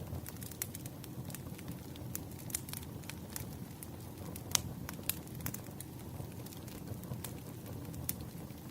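A wood fire burning: a steady low rumble of flames with irregular sharp crackles and pops of burning firewood, one louder pop about halfway through.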